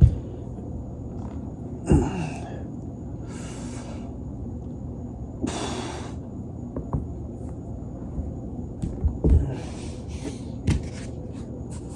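A body shifting on a foam roller: several dull thumps and a few bursts of rustling, with a handful of small sharp clicks.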